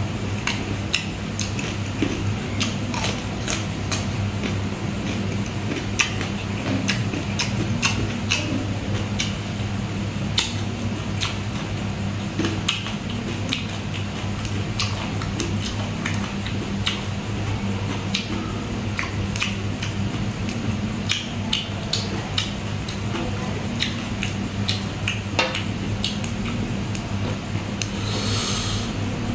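Close-miked food handling and eating: many scattered crisp clicks and small snaps as pea eggplants are picked off their stems and chewed, over a steady low hum.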